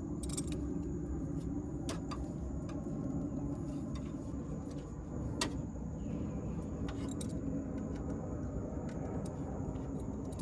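A steady low rumble with a few sharp clicks and ticks of a hand tool working on thick copper battery cable.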